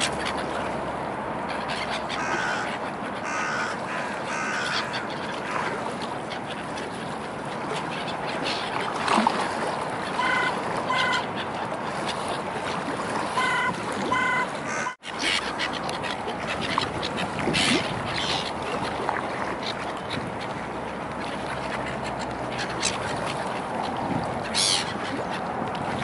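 Black-headed gulls in a flock giving short, harsh calls in quick runs of several at a time, over steady waterside background noise.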